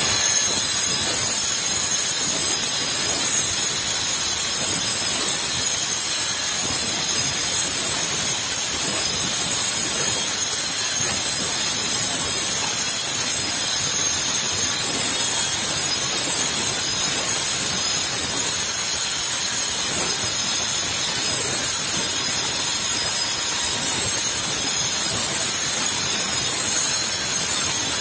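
Angle grinder with a GRAFF Black Professional diamond cutting disc running under load as it cuts through a copper-alloy rod: a steady, high-pitched whine with a hiss of cutting, without a break.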